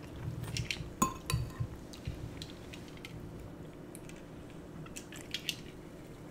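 Metal fork clinking and scraping against a glass bowl of noodle soup, as scattered light clicks with a sharper clink about a second in.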